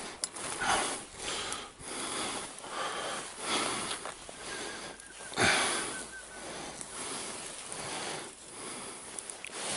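Dry branches and grass rustling with irregular footsteps as someone pushes through a blackthorn thicket, parting the twigs by hand, with breathing close to the microphone.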